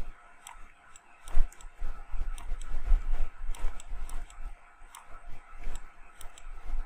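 Irregular, scattered clicks of computer input devices at a desk, with a low rumble underneath.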